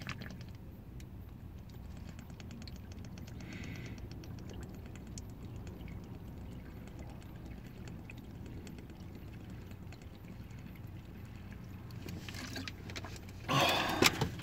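Sipping and swallowing from a plastic water bottle, with faint crinkles of the bottle, over a low steady rumble inside a car cabin. About a second before the end a loud rustling clatter breaks in.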